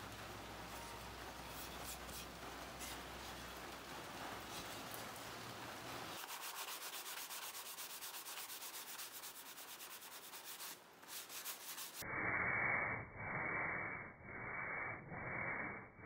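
Hand sanding the edges of cut plywood pieces with sandpaper: steady back-and-forth rasping strokes. Near the end come about four louder, longer strokes that sound muffled.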